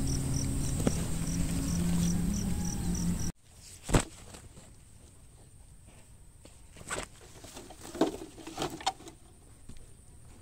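Insects chirping in a steady high pulse, about three chirps a second, over a low hum. The sound cuts off abruptly about three seconds in, leaving a quiet field with a few scattered soft knocks.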